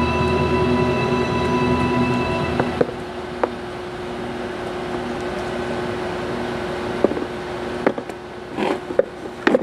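A sustained music chord stops about three seconds in; then, over a steady low hum, sharp clicks and knocks from a hard plastic refractometer case being handled, with a cluster of them near the end as the lid is pressed shut.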